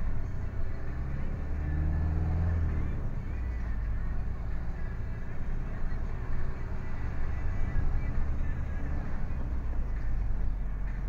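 A lorry's diesel engine running, with road noise, heard from inside the cab while driving; the low engine note swells for a moment about two seconds in.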